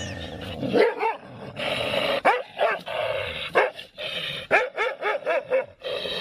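A dog barking and whining in short calls that rise and fall in pitch, with a quick run of them in the second half.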